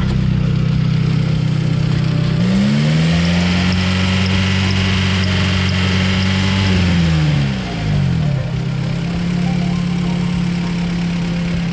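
Honda VTEC engine idling, revved up about two seconds in, held at higher revs for about four seconds, then dropping back to idle.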